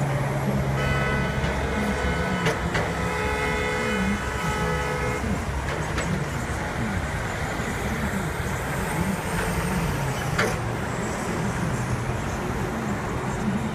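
Steady road and traffic noise from a vehicle moving along a busy highway. About a second in, a horn sounds one long blast of several notes held together for about four seconds.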